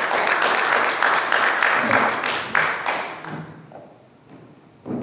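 Audience applauding, dying away about three seconds in. A thump follows near the end.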